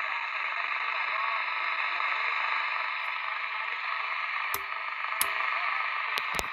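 Sony ICF-2001D shortwave receiver in AM mode playing steady shortwave static, with a faint, weak station underneath, as it is tuned up through the 12 MHz band. A few sharp clicks come about two-thirds of the way in.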